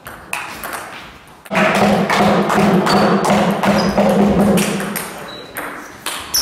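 Table tennis ball clicking off bats and table in a rally. About a second and a half in, a loud, sustained sound with a steady low pitch starts suddenly and lasts about three and a half seconds.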